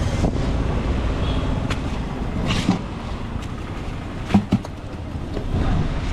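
Steady rumble of road traffic going by, with a few sharp knocks and clicks; the loudest pair comes about four and a half seconds in.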